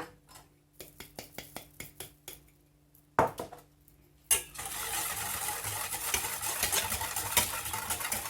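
A utensil taps lightly against a pot about a dozen times, and two sharper knocks come about three and four seconds in. Then a steady, rapid whisking starts as cornstarch is stirred into milk, with dense clicking and scraping against the pot.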